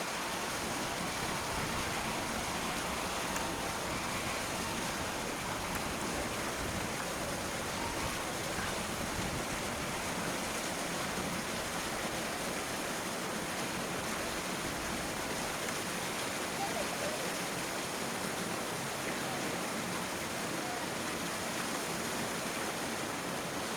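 Steady rushing noise, even and unbroken throughout, with faint distant voices.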